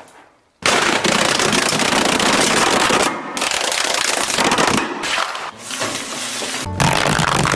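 Loud, dense crackling noise like rapid gunfire or firecrackers, starting about half a second in and running in three long stretches separated by brief dips.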